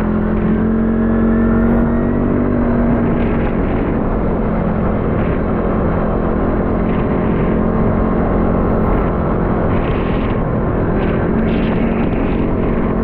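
ATV engine running steadily while riding, its pitch shifting slightly now and then, over a constant rush of wind and road noise.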